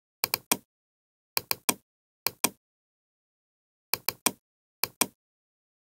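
Computer mouse clicking: about five quick groups of two or three sharp clicks, with dead silence between. These are double-clicks opening books one after another in the software.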